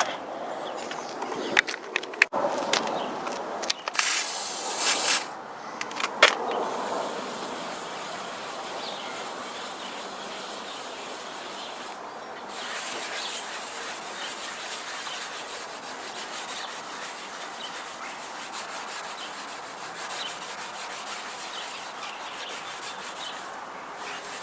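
Cloth rubbing on a car's plastic light lenses as they are wiped clean with WD-40, with a one-second hiss of the aerosol spray about four seconds in and a few light knocks early on.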